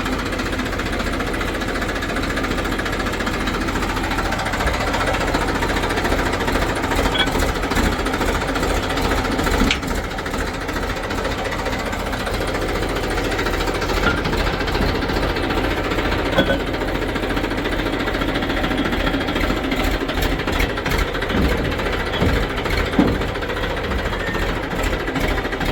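Heavy diesel engine of earthmoving machinery running steadily under work, with a couple of brief knocks about ten and sixteen seconds in.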